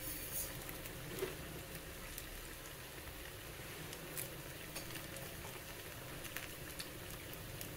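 Banana fritters deep-frying in hot oil in a kadai: a faint, steady sizzle and crackle, with a few light clicks scattered through it.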